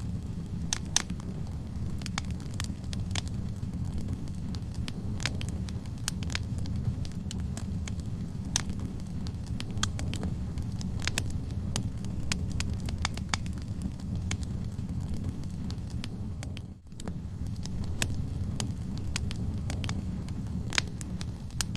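Wood log fire in a fireplace: a steady low rumble of flames with frequent sharp crackles and pops from the burning wood. The sound dips out for a moment about seventeen seconds in.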